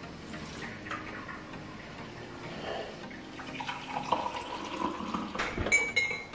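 Coffee poured from a glass coffee-maker carafe into a ceramic mug for a second or two, then a metal spoon clinking against the mug a few times near the end.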